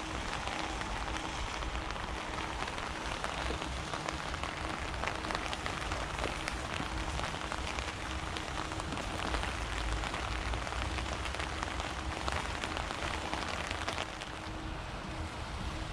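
Steady rain falling, with many small drop ticks on a nearby surface and an uneven low rumble underneath.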